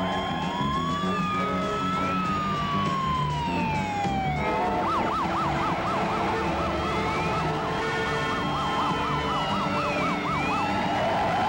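Police car sirens. A slow rising and falling wail switches to a fast yelp about four and a half seconds in, then goes back to a wail near the end, with more than one siren overlapping.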